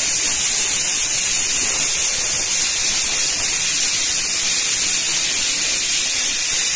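Pressure cooker hissing steam steadily out under its whistle weight, the sign that it has come up to pressure and is whistling.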